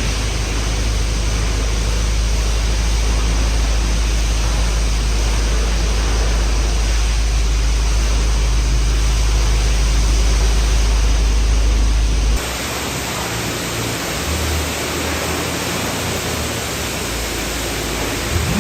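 Steady rushing road and wind noise of a car being driven, with a heavy low rumble. About twelve seconds in it changes abruptly to a lighter hiss with less rumble.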